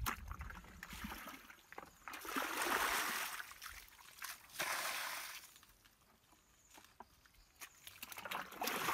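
Muddy water being bailed out of a shallow rut with a plastic bucket: two longer gushes of water, each about a second long, about two and five seconds in, with small splashes and sloshing between.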